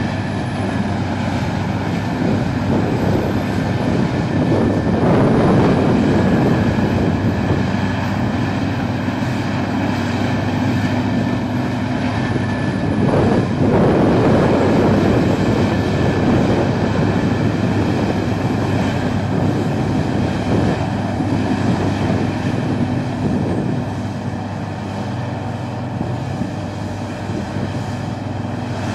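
Peterson 4300B horizontal drum wood chipper running, a loud, steady, heavy mechanical din with brief surges about five and thirteen seconds in.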